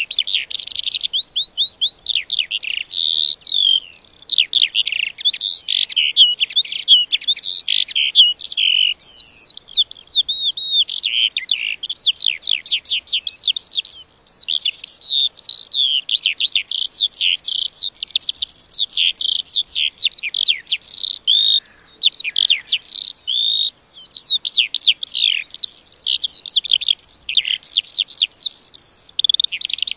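Lark singing: one unbroken stream of quick, high, varied chirps and trills.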